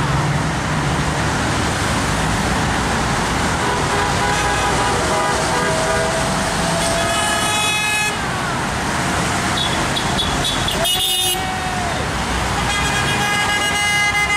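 Steady rush of heavy highway traffic passing below, with several car horns honking over it. Some honks are held for a second or more, and the last starts near the end.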